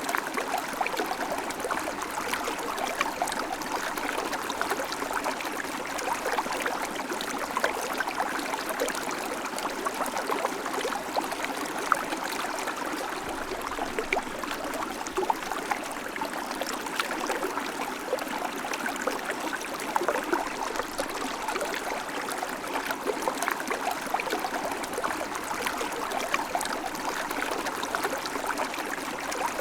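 River water flowing steadily over rocks: a constant rushing with fine gurgles and splashes and no change in its flow.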